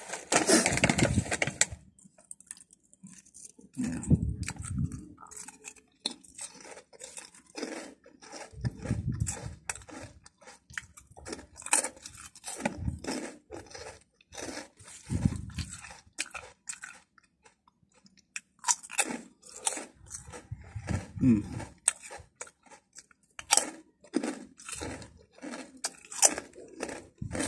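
Potato snack chips crunched and chewed up close, with sharp cracks at an irregular pace. At the start, the crinkly snack bag rustles as the chips are tipped out.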